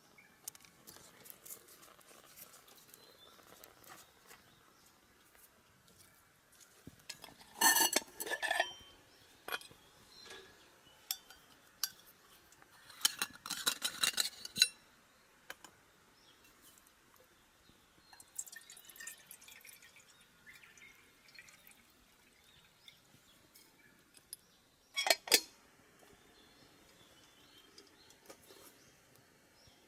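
Dishes and glassware being handled: scattered clinks and knocks, with louder clusters about a quarter of the way in, near the middle and near the end, and some brief liquid sounds.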